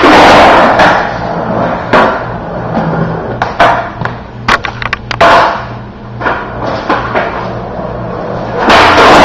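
Skateboard wheels rolling over a concrete floor, broken by sharp clacks of the board's tail popping and the deck slapping down on landings: a hit right at the start, one about two seconds in, a quick cluster in the middle, and louder rolling near the end.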